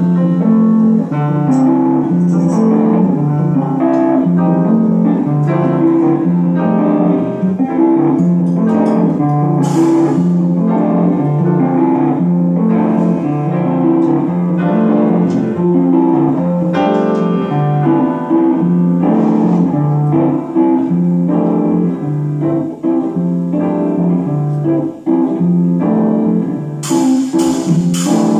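Live jazz trio playing: hollow-body electric guitar and grand piano over a drum kit, with the cymbals coming in louder near the end.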